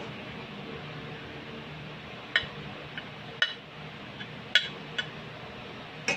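A metal spatula clinks and scrapes against a stainless steel pan while fried rice is scooped out and served onto a plate. There are about six sharp clinks, starting about two seconds in, over a low steady hum.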